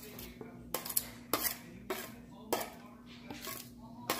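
Glass dishes clinking: a glass plate knocks against a glass mixing bowl as chopped vegetables are tipped and scraped off into it, with about six short, sharp clinks at uneven intervals over a steady low hum.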